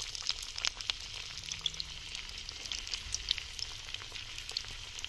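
Gram-flour-coated fish pieces sizzling in hot oil in a clay pot, a steady hiss full of fine crackling pops as pieces are dropped in one at a time.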